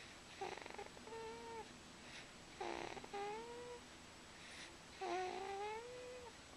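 Snoring in a slow breathing rhythm, three breaths in all. Each breath is a short rattling snore followed by a whistling note that glides slightly upward.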